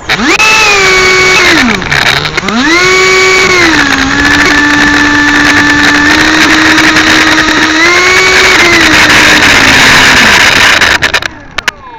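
Small high-revving engine running close to the microphone. It revs up, drops to a low drone about two seconds in, then revs back up and holds a steady high pitch with a brief further rise. It falls away and cuts off suddenly near the end.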